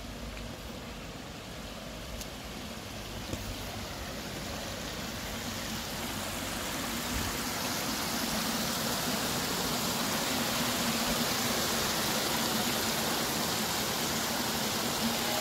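Seawater pouring over the edge of a concrete causeway in a thin cascade and splashing onto the rocks below: a steady rush of water that grows louder over the first half.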